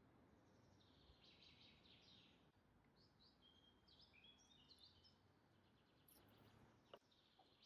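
Near silence with faint birds chirping: a scatter of short chirps and brief whistled notes, and one faint click about seven seconds in.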